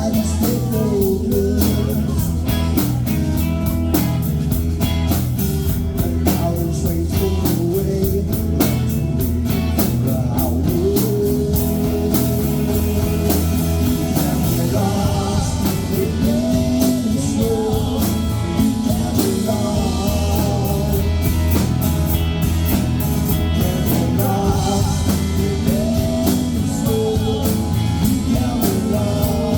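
Rock band playing with a singer, electric guitar and a steady drum beat.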